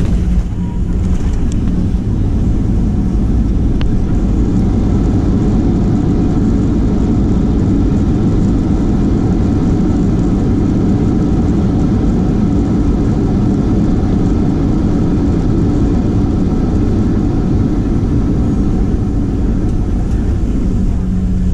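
Cabin noise of a Boeing 737-700 during its landing: the CFM56-7B jet engine and rushing airflow, heard from a seat beside the engine as a steady, loud low rumble.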